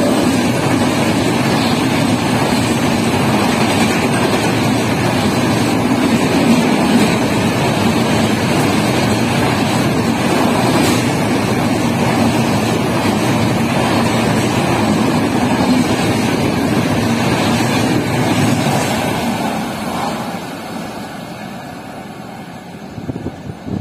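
Express train's passenger coaches rushing through a station at high speed: a loud, steady rush and rumble of wheels on rail that fades away about 20 seconds in as the last coach passes.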